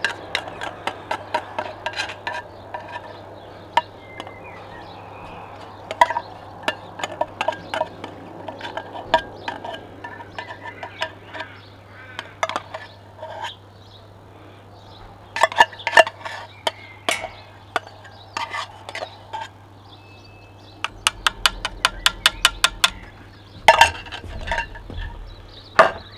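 Metal spoon scraping coconut cream out of a tin can and clinking against the can and the metal pot in irregular taps, with a quick run of clinks near the end.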